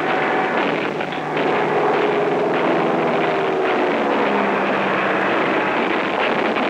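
Aircraft engines droning overhead, their pitch sliding slowly down.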